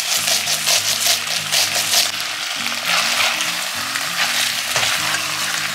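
Beef chunks in rawon spice paste sizzling as they are stir-fried in an enamelled cast-iron pot, stirred with a silicone spatula. Quick repeated stirring strokes run through the first two seconds.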